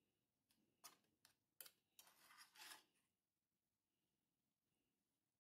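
Faint clicks and a short scrape of a small spoon stirring raw fish and vegetables in a small metal bowl: a few light taps, then a brief scraping rustle about two seconds in, and otherwise near silence.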